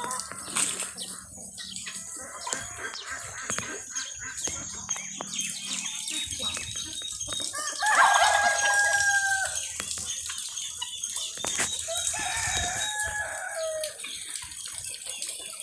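Rooster crowing twice, a long held crow about eight seconds in and a second one falling in pitch near the end, over steady pattering rain.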